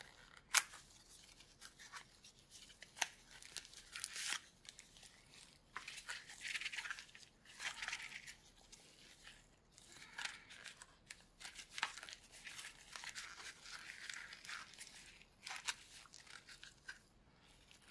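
Packaging being handled and pulled apart by hand: irregular bursts of rustling and scraping with scattered sharp clicks, the sharpest about half a second in.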